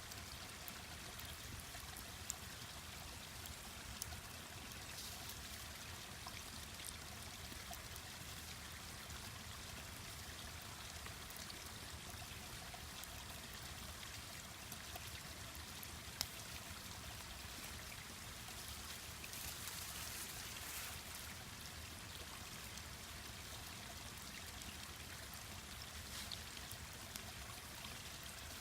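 Mountain stream rushing steadily, with a few sharp pops and crackles from a wood campfire.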